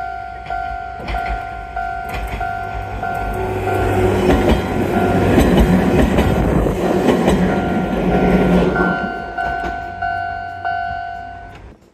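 A Toyama Chihō Railway electric train passes close by, its wheels rumbling and clattering on the rails, loudest about five to eight seconds in. Throughout, a level-crossing bell dings steadily, about one and a half strokes a second.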